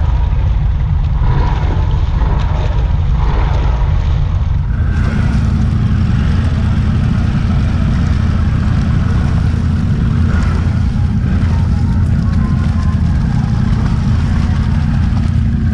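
ATV engine running steadily as a loud, constant low rumble while the quad sits half-submerged in deep muddy water.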